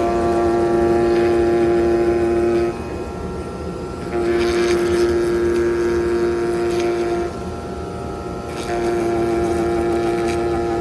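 CNC knife cutting machine for honeycomb board running a cut. Its cutting head gives a steady, pitched hum over a constant mechanical noise. The hum comes and goes: on for about three seconds, off for about a second and a half, twice, then on again near the end.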